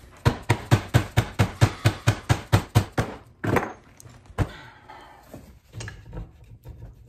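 A rapid series of sharp metal knocks, about a dozen at roughly five a second, as a stuck gear-fork part is forced on the cast-iron apron of a 1935 South Bend lathe. Two heavier single knocks and a few softer clunks follow.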